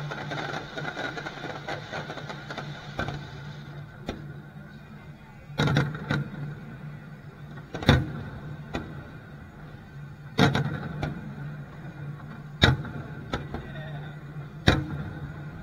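Fireworks display: a dense crackle of low-level crackling effects for the first few seconds, then aerial shells bursting overhead with five sharp booms about two seconds apart, with smaller pops between them.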